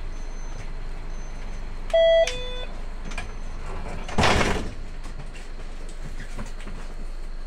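Ride inside a moving bus: steady low engine and road rumble, a two-note electronic chime stepping down in pitch about two seconds in, and a car rushing past close alongside about four seconds in.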